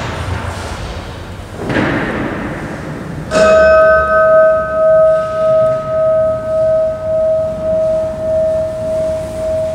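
A bell struck once about three seconds in, ringing on with one clear tone that pulses slowly as it fades. A short noisy rustle comes just before the strike.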